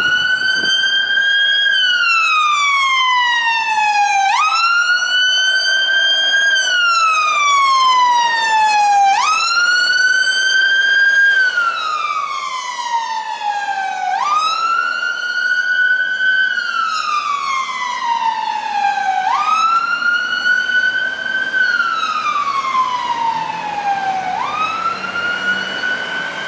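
Scania P280 fire engine's siren sounding a wail: each cycle jumps up quickly in pitch, then falls slowly, repeating about every five seconds. It is a little quieter after about twelve seconds.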